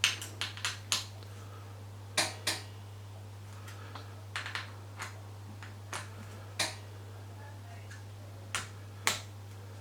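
Sharp metallic clicks and taps, about a dozen spaced irregularly, as an Allen key is seated in and turned on the handlebar stem-clamp bolts, each bolt nipped up gently in turn from opposite corners. A steady low hum runs underneath.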